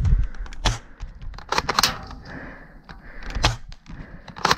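Scattered single sharp cracks and clicks of airsoft gunfire and BBs striking cover, at irregular intervals about a second apart.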